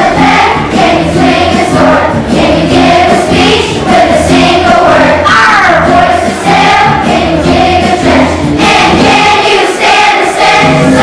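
Large children's choir singing a song with instrumental accompaniment, a steady bass line under the massed voices.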